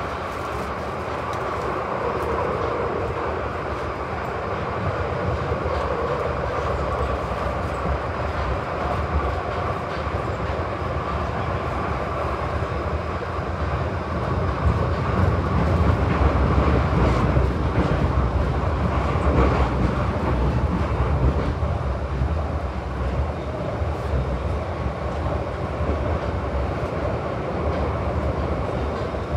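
Glasgow Subway train running, heard from inside the carriage: a steady low rumble and rattle of wheels and car body, getting louder about halfway through and easing again later.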